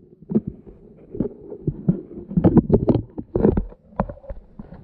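Irregular muffled knocks and thumps, heard through a waterproof action-camera housing submerged under the ice, bunched together in the middle of the stretch.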